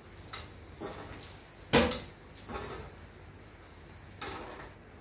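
Metal tongs clacking against a contact grill's plate and a ceramic plate as cooked sucuk slices are lifted off: about five sharp clacks, the loudest a little under two seconds in.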